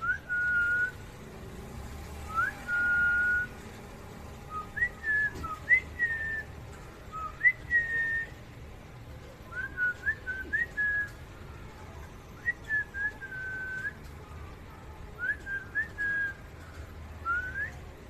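A person whistling clear notes in short phrases, each one a quick upward slide into a held note, repeated with pauses between.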